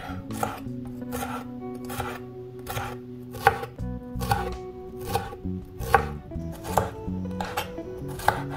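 Chef's knife slicing a red bell pepper into strips on a bamboo cutting board: each stroke is a crisp cut ending in a knock of the blade on the wood, about one a second.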